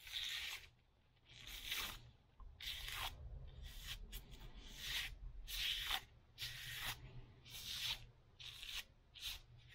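Fingers brushing and rubbing along an arrow's freshly burned feather fletching, a series of soft rustling strokes about once a second, over a low steady hum.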